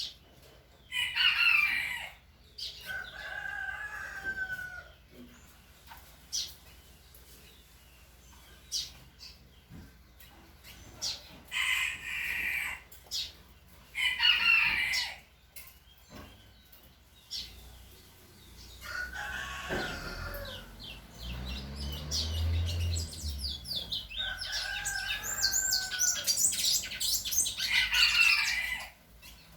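Small cage birds singing and calling in short, sharp phrases, with a fast high trill near the end. Twice, about three seconds in and again near the end, a longer, lower call falls slightly in pitch.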